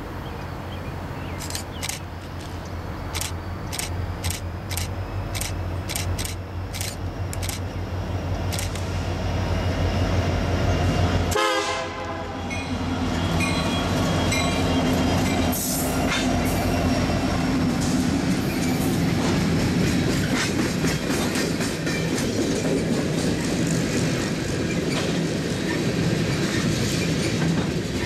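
Freight train passing close by: Union Pacific diesel-electric locomotives drone louder as they approach, passing about twelve seconds in. A long string of refrigerated boxcars follows, with the steady clickety-clack of wheels over rail joints.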